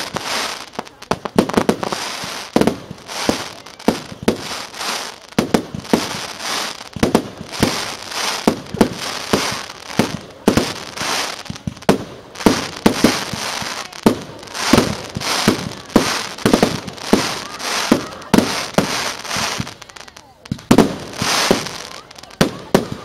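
Professional display fireworks: aerial shells bursting in a rapid, continuous barrage of bangs, several a second, with crackling between them.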